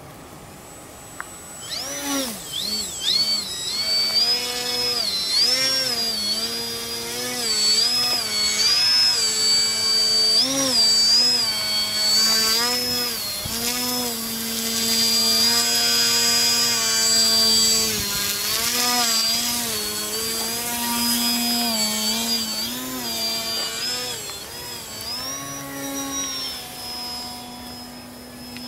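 Radio-controlled Yak-55M aerobatic model plane's motor and propeller whining past in flight, the pitch rising and falling again and again with throttle changes. It comes in about two seconds in and eases off near the end.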